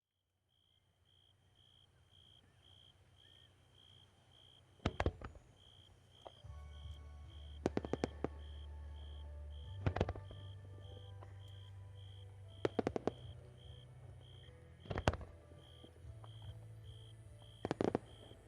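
Fireworks bursting in sharp cracks every two to three seconds, some coming in quick clusters of several reports. A steady high beeping, about twice a second, and a low stepped hum run underneath.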